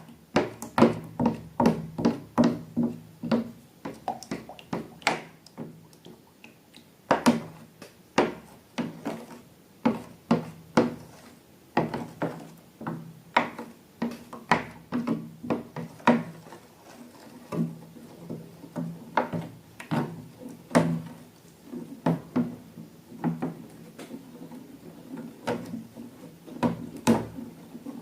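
Slime being worked and mixed: irregular sharp clicks and wet smacks, several a second, with short gaps.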